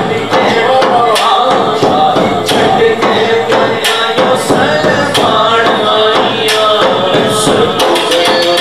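A man singing a devotional Punjabi kalam into a microphone, with a frame drum struck in time underneath.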